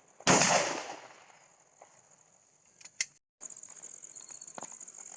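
A single loud gunshot about a quarter second in, its report ringing out and fading over most of a second. A much fainter sharp crack follows about three seconds in.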